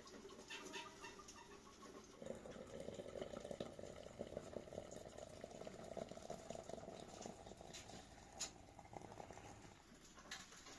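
Faint sizzling and crackling of food cooking in oil in a pan. It picks up about two seconds in and fades near the end.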